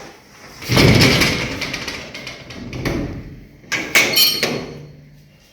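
A door being opened and shut: a loud scraping rush about a second in, then a weaker knock, and a sharp rattling clatter about four seconds in.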